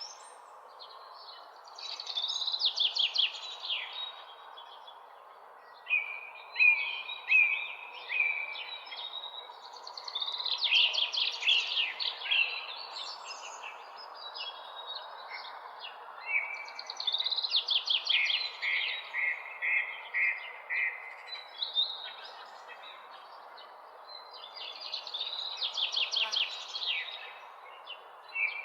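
Songbirds singing in the early morning: phrases of rapid chirps and trills come every few seconds, with short gaps between them, over a steady background hiss.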